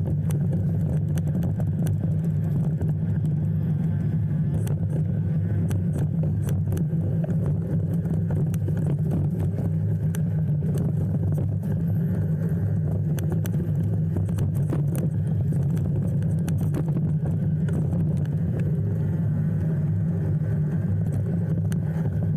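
Steady low rumble of a motor vehicle driving, with faint scattered clicks and rattles.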